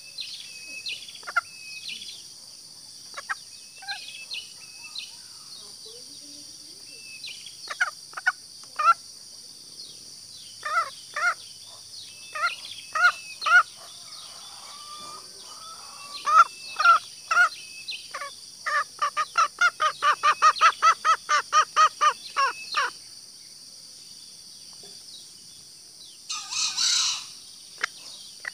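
Green junglefowl calling: scattered short clucks, then a rapid run of about twenty clucks at roughly five a second, and a louder, harsher call near the end. A steady high hiss runs underneath.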